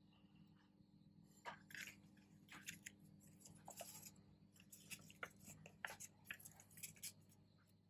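Faint paper rustling and light ticks of a folded paper leaflet being handled over a tabletop, starting about a second and a half in, over a low steady hum.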